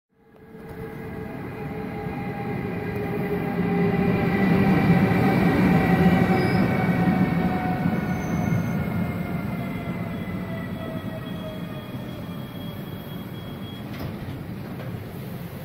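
ÖBB Taurus electric locomotive and its passenger coaches rolling into a station and slowing, with several whining tones that fall slowly in pitch as the train slows. The sound is loudest about five seconds in, as the locomotive passes, then eases as the coaches roll by.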